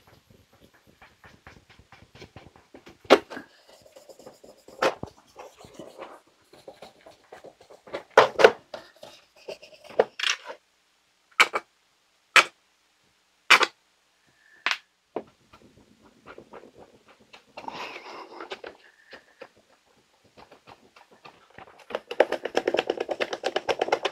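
A cloth rubbing polish over a clear plastic pinball cover to buff out scratches. Scattered sharp clicks and knocks as the plastic is handled, then quick, dense scrubbing near the end.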